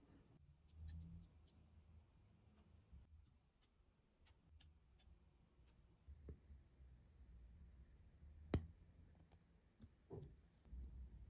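Faint scattered clicks and taps of small watchmaker's tools on watch parts, with one sharp click about eight and a half seconds in.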